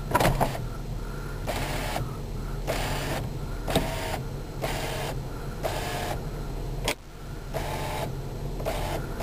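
Power sunroof motor of a 2003 Nissan Maxima whirring in short repeated runs, about one a second, as the glass panel tilts up and slides open, with the engine idling underneath as a steady low hum.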